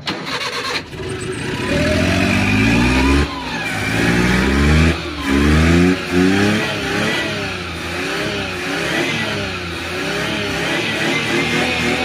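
Car engine starting up and being revved: a brief crank, then it catches and is blipped several times, then held at a fast, wavering rev. It runs now that its rain-soaked distributor cap has been wiped dry.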